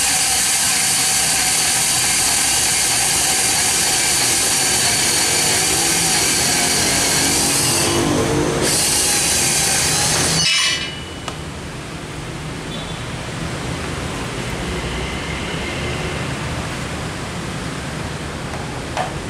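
Milwaukee M12 BS 12-volt cordless compact band saw with an 18 TPI blade cutting through 40 x 40 mm hollow square steel tube with a 2 mm wall: a loud, steady motor and blade noise that stops abruptly about ten and a half seconds in. A faint clink near the end.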